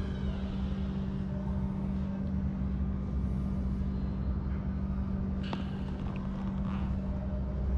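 Steady low hum and rumble of a large indoor hall's room tone, with a single sharp click about five and a half seconds in.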